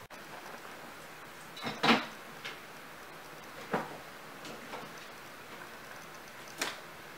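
Kittens moving about in and around a plastic pet carrier with a wire door: a few sharp clatters and taps, the loudest about two seconds in.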